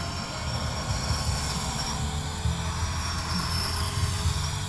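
Cordless battery grass trimmer, a Makita replica with a small cutting blade, running as it cuts through weeds, with a high wavering whine over a low rumble.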